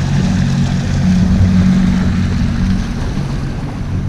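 A 40 hp outboard motor running steadily, driving the boat along, with water and wind noise around it. The level eases slightly about three seconds in.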